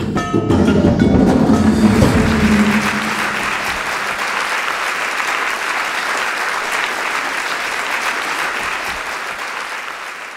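The last notes of percussion music ring out, a low note held for the first three seconds or so, under audience applause that then carries on alone, steady, and fades out near the end.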